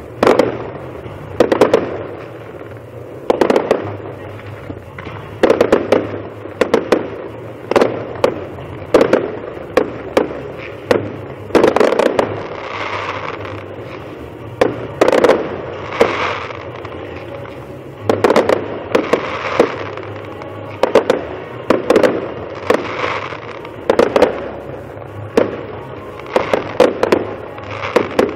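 Fireworks display: aerial shells bursting one after another, a sharp bang every second or two, each trailing off in echo, with hissing and crackling from the effects between bangs.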